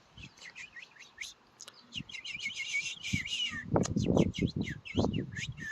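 Rapid, high squeaky chirps, a person mimicking the begging calls of baby chickadees with the mouth close to the microphone. From a little past halfway, louder low rustling and knocks join the chirps.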